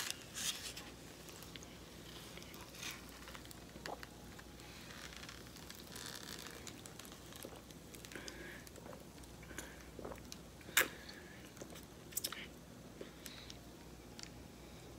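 A person eating off a styrofoam plate held to the mouth: faint chewing and mouth sounds, with a few sharp clicks, the loudest about eleven seconds in.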